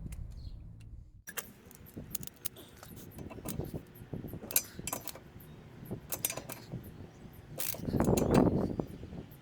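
Small metal parts and tools clinking and rattling as they are handled, in a run of sharp clicks, with a louder, longer rattle near the end.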